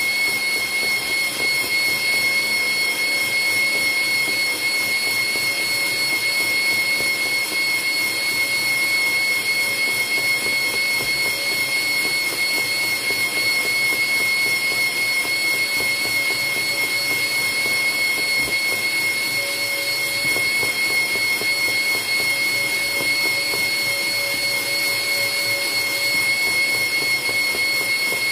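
KitchenAid stand mixer's motor running steadily with a high whine, driving its meat-grinder attachment as it pushes sausage meat into a casing.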